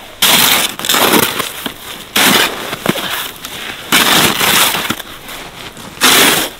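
Red plastic scoop being driven into deep snow: about five scraping, scooping strokes at uneven intervals.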